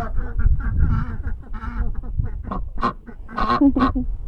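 Ducks quacking, a run of short calls one after another, with a louder burst of calls about three and a half seconds in.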